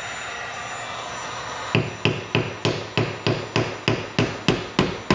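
Hammer tapping a wooden shim wedge down behind a granite backsplash, about three even blows a second starting nearly two seconds in, driving the wedge deeper to split the backsplash away from the wall. Before the blows, the steady blowing of a heat gun, which stops as the hammering begins.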